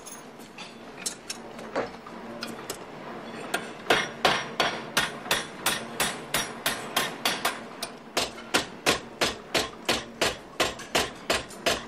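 Hand hammer striking metal, driving the pin into a hinge. A few scattered metal clinks as the parts are handled, then from about four seconds in a steady run of quick blows, about two and a half a second.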